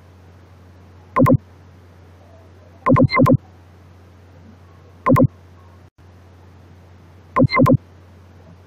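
Loud, harsh clicks: a single one, then a quick run of three, then one more, then another run of three. A steady low electrical hum runs underneath.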